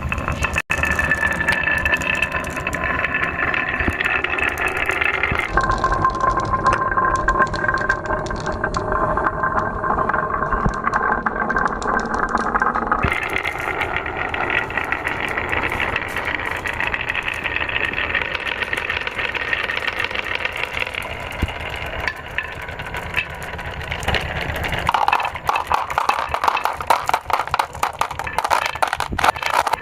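Colour balls rolling and clattering down a wooden and plastic marble run, a dense stream of rapid clicks and rattling with a ringing rumble. The sound changes character abruptly several times.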